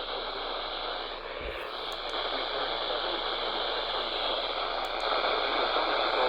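Radio static: a steady hiss from a receiver, with a brief low thump about a second and a half in and growing slightly louder near the end.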